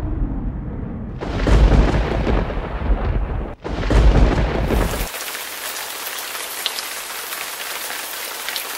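Thunder rumbling in two long, deep peals, then from about five seconds in a steady hiss of heavy rain.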